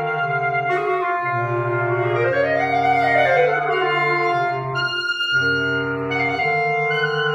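Instrumental music: several held notes over a low sustained bass. A melodic line climbs and falls back near the middle, and there is a brief break about five seconds in.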